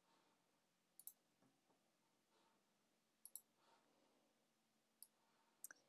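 Near silence broken by faint computer-mouse clicks, mostly in quick pairs, about four times.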